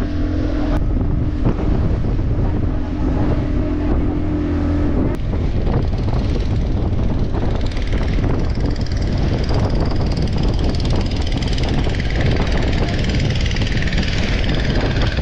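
Motorboat engine running steadily under a low rumble, with a steady hum that drops out about five seconds in. In the second half the hiss of water splashing off the hull through choppy waves grows louder.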